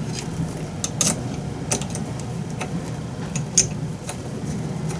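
Light, irregular clicks and ticks of tiny screws and a small screwdriver being worked into a 3D printer's hotend fan and heat sink, about nine in all, over a steady low hum.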